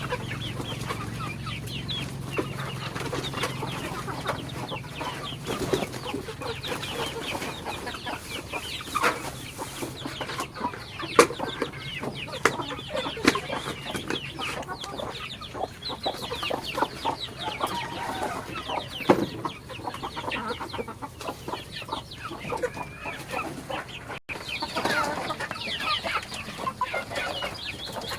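A flock of chickens clucking, many short calls overlapping, with scattered sharp clicks and knocks. A low hum fades out in the first few seconds.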